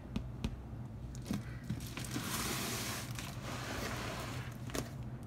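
Rustling of a folded cotton shirt and plastic wrap being handled, with a longer rustle about two seconds in and a few light clicks and taps. A steady low hum runs underneath.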